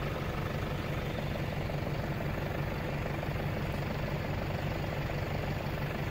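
A vehicle engine running steadily with an even low hum.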